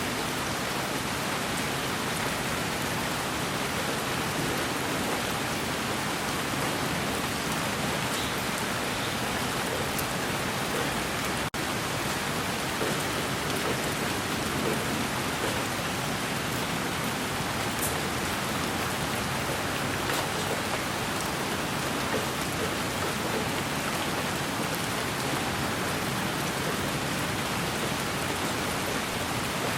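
Steady rain falling on a surface: a dense, even hiss of drops with scattered faint ticks, broken by a split-second dropout about eleven seconds in.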